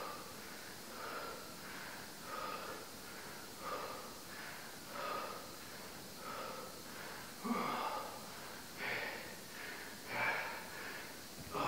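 A man's forceful, rhythmic breathing during sit-ups: about ten sharp exhales, one roughly every 1.3 seconds, each marking a repetition.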